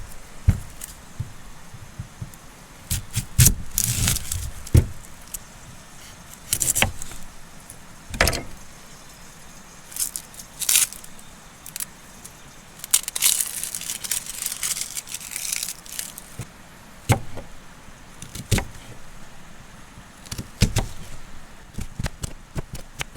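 Camp cookware and utensils being handled: a string of separate clinks, knocks and rattles, with short stretches of rustling in between.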